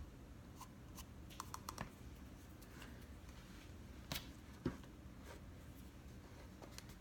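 Faint, scattered clicks and light rustles of cardstock being handled and pressed while tacky glue sets, with a few slightly louder taps in the middle.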